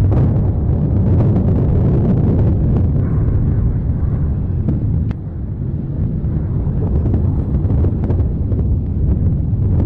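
Mount Etna's Voragine crater erupting in a lava fountain: a continuous deep rumble with sharp explosive cracks, dropping slightly in level after a crack about five seconds in.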